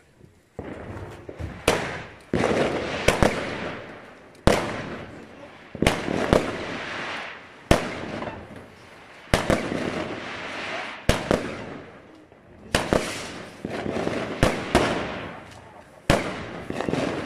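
Consumer firework battery (cake) firing its shots one after another: after about half a second of near quiet, a sharp bang comes roughly every second and a half, each followed by a noisy tail of about a second as the shell bursts.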